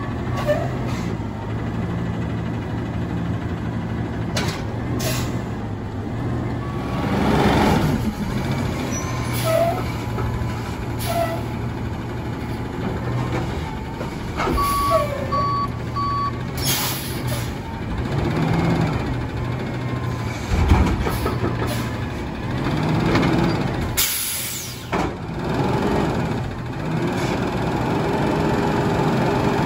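Autocar ACX garbage truck with a Heil Freedom front-loader body maneuvering at low speed, its engine running steadily. Several sharp air-brake hisses cut in, and three short backup-alarm beeps sound about halfway through.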